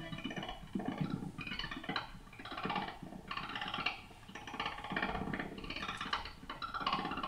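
Looped electric guitar phrase, ring-modulated and reversed, broken up into very short grains by granular pedals (Red Panda Particle and Fabrikat): a stuttering, glitchy pitched texture that comes in chunks roughly once a second with short dips between them.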